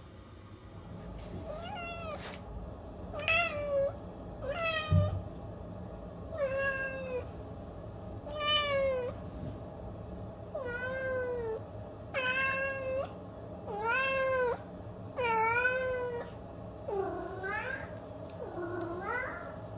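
Domestic cat meowing over and over, about a dozen drawn-out meows one every second or two. The last two start lower and rise in pitch.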